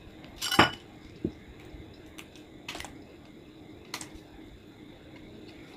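Scissors snipping through the thin aluminium-backed LED circuit board: one loud sharp snip about half a second in, then a few fainter snips and clicks.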